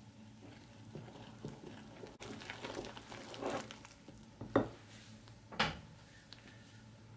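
Wooden spoon stirring flour and liquid into a dough in a ceramic bowl: irregular scraping and rubbing, with two loud knocks of the spoon against the bowl about a second apart past the middle.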